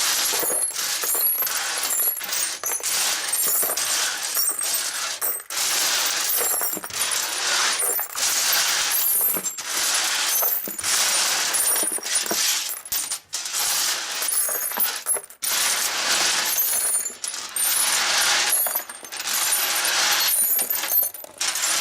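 Loose metal bolts and screws clattering and jingling as hands rummage through a bolt box, a continuous dense rattle with brief pauses.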